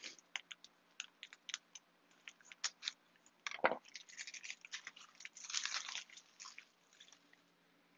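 Ribbon spools being handled and opened on a table: faint scattered clicks and crinkly rustling, with a longer spell of rustling past the middle and a soft knock just before it.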